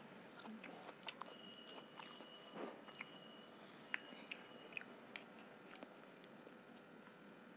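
Faint, close-miked chewing of a mouthful of homemade vegetable pizza, with scattered soft mouth clicks and small crunches; the sharpest click comes about four seconds in.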